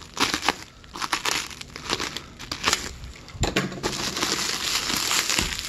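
Plastic stretch wrap crinkling and crackling as it is slit with a utility knife and pulled apart by hand. The irregular crackles turn into a denser, steadier rustle about four seconds in.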